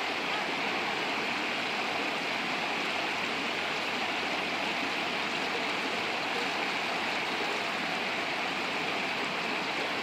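River water rushing steadily over rocks in small cascades, an even, unbroken rush.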